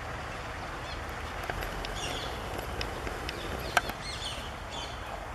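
Small aviary birds chirping and twittering in short, high, falling notes over a steady background noise, with a sharp click a little under four seconds in.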